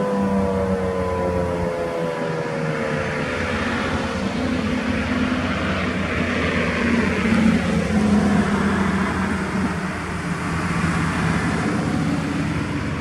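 Federal Signal 2001-SRN outdoor warning siren winding down at the end of a full-alert test, its falling tone fading out over the first few seconds. After it, a steady rushing noise with a low hum, swelling about seven seconds in.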